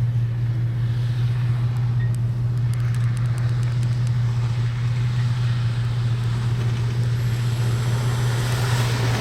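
A motor vehicle running with a steady low drone, with a hiss building near the end.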